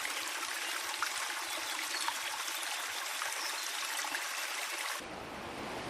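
Running water, a steady trickling hiss with many fine splashes and ticks; the sound changes abruptly about five seconds in.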